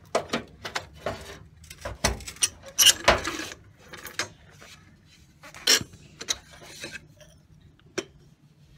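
Metal clinks, knocks and scraping as a coil spring and its top-mount parts are slid off a car's front strut by hand. The loudest scraping rattle comes about two to three and a half seconds in, with a few single knocks after.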